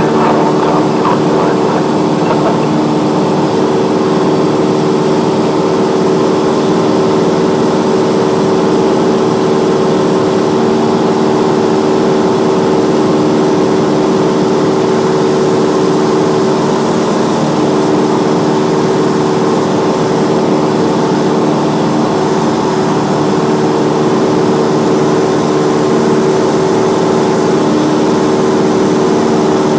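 Cessna light aircraft's piston engine and propeller droning steadily at constant power, the pitch holding level throughout.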